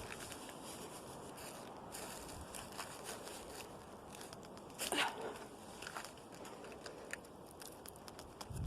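Footsteps and scuffs on rocky ground with scattered small clicks, a louder scrape about five seconds in and a heavy thump near the end.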